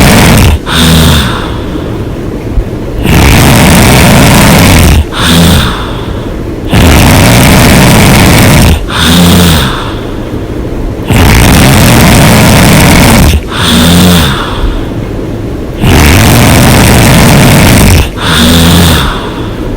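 A person snoring very loudly and heavily with the mouth open, in a steady rhythm of about one breath every four seconds. Each long, rough, rattling snore is followed by a shorter, lower-pitched breath sound, about five cycles in all.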